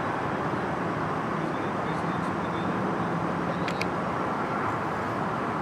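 Steady traffic and vehicle-engine noise, an even rumble with no clear rhythm, with two faint ticks about two-thirds of the way through.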